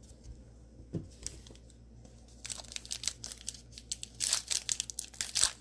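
Cellophane wrapper of a trading-card cello pack crinkling and tearing as it is opened, a dense rapid crackle starting about two and a half seconds in, after a single soft knock about a second in.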